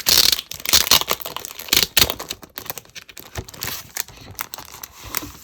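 Plastic cover crinkling and rustling as it is handled, with irregular crackles and clicks, loudest in the first two seconds and quieter after.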